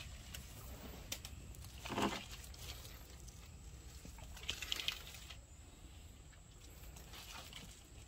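Pineapples being handled and shifted in a plastic basket: their stiff, spiky crown leaves rustle and scrape against each other and the basket. There is a short bump about two seconds in and a crisp rustle near five seconds.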